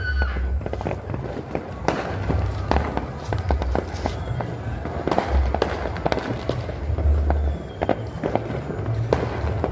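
New Year fireworks going off, a rapid, irregular series of bangs and crackles, some close together and some sharper than others.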